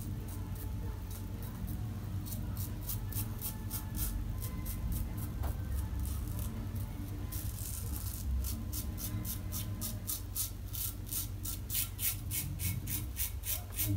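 Yaqi double open comb safety razor scraping through lathered stubble in short strokes, a crisp rasp with each pass. The strokes are spaced out at first, then come quickly, about three a second, from around eight seconds in.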